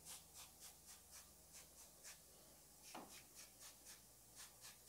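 Hand trigger spray bottle spritzing degreaser, a run of quick, faint spritzes about three a second.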